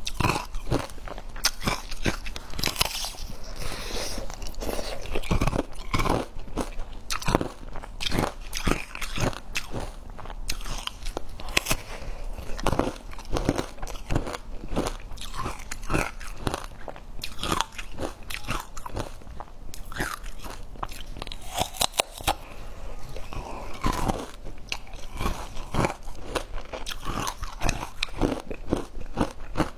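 Close-up eating sounds of crunchy cookies: repeated bites and steady crunching chews, crisp and irregular throughout.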